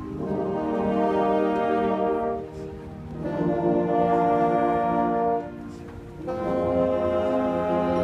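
Marching band brass, sousaphones included, playing slow sustained chords: three long held chords, each swelling and then breaking off briefly before the next.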